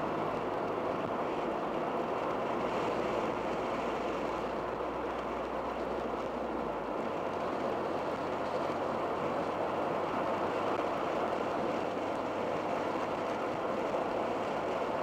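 Cabin noise of a 1987 Dodge Daytona Shelby Z cruising: the turbocharged four-cylinder engine and aftermarket muffler running under a steady hiss of tyres and wind. A low hum drops away about halfway through.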